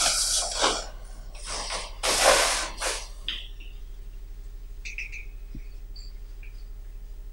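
Several hissing, rustling noise bursts in the first three seconds, then a quiet background with a steady low hum and a few faint high squeaks near the middle.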